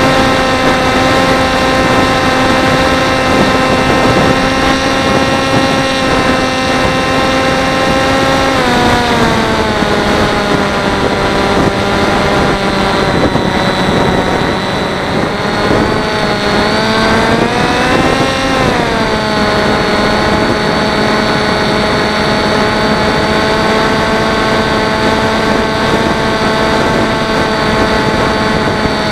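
Electric motor and propeller of a Teksumo flying wing, heard from its onboard camera in flight, with steady whine over wind rush. The pitch drops about a third of the way in as the throttle comes back, swells up again briefly past the middle, drops once more, then holds steady.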